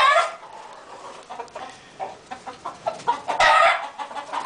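Chickens clucking with many short clucks, and two louder calls, one at the start and one about three and a half seconds in.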